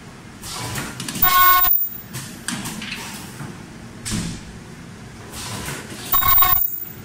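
Disposable strip-tube filling and sealing machine running through its cycle. A loud buzzing tone lasts about half a second and comes twice, about five seconds apart, each time cutting off abruptly. Short hisses and knocks come in between.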